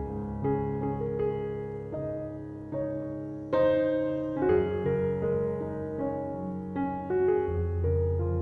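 Calm background piano music: slow melody notes over held low chords, with a louder chord about three and a half seconds in.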